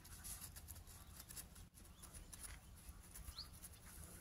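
Near silence with faint outdoor background: soft scattered clicks and rustles over a low rumble, and one short, high, rising chirp a little past three seconds in.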